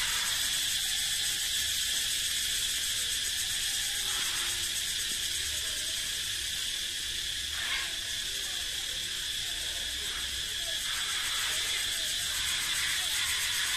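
Cicadas calling in a steady, continuous high-pitched buzz.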